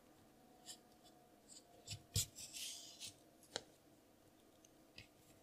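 Faint handling sounds of a yarn needle stitching yarn through a metal key ring and a crocheted piece: scattered small clicks, the loudest about two seconds in, and a short rustle of yarn being pulled through.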